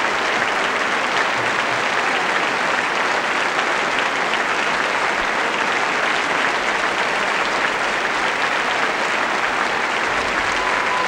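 Concert audience applauding, with dense, even clapping at a steady level.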